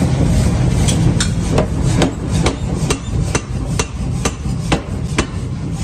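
Hand hammer striking metal on an anvil in forging, about eleven even blows at two to three a second, over a steady low rumble.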